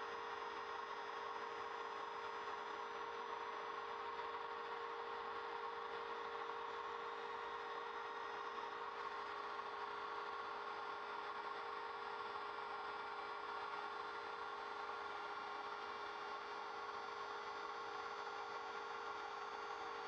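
Trim router on an MPCNC Primo CNC machine running steadily, its 1/8-inch single-flute end mill cutting plywood at a slow feed of 4 mm depth per pass. The motor gives a steady whine that does not change.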